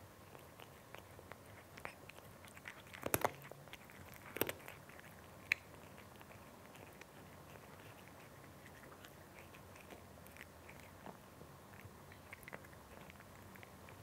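A cat crunching dry kibble: many short, irregular crunches and clicks of chewing. The loudest come in a cluster about three to four and a half seconds in, then they grow sparser and fainter.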